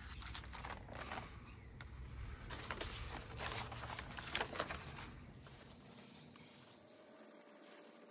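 Paper template rustling and crackling as it is handled and peeled off a textured clay slab, loudest about halfway through, then dying down to faint handling sounds.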